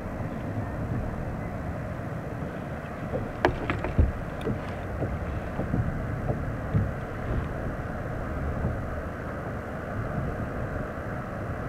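Steady wind rumble buffeting the microphone on a sit-on-top kayak on open water, with a few sharp clicks and knocks about three and a half to four seconds in.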